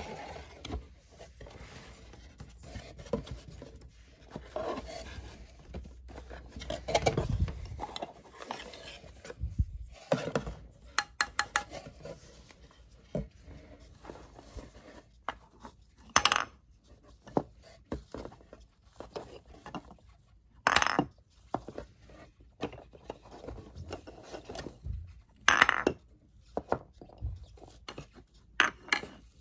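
Cardboard and shredded paper filler rustling and scraping as a toy box is opened, then hard clacks of painted wooden balls being lifted from their wooden cups and dropped into a bowl, a few of them sharp and loud.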